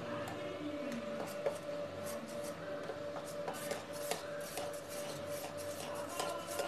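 Metal fork whisking wheat flour into carrot juice in a stainless steel bowl, the tines clicking and scraping against the bowl in quick, irregular strokes as the lumps are beaten out.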